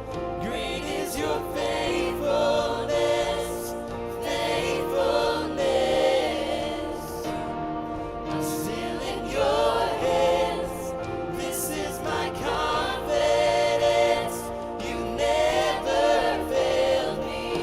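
Church worship music: a choir of voices singing over sustained instrumental chords.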